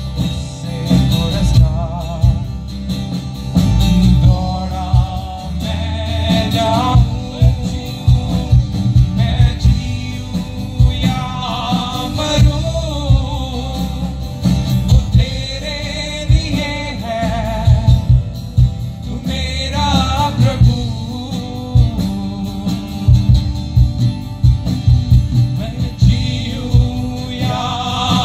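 Live band music through a PA system: amplified acoustic and electric guitars and drums with a steady beat, and a man singing a worship song.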